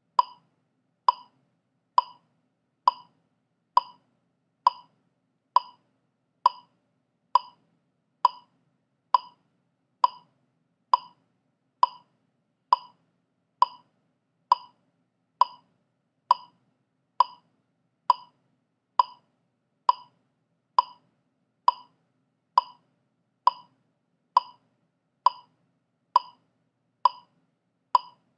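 Metronome click track at 67 beats per minute: short, identical clicks evenly spaced a little under a second apart, with no accented beat.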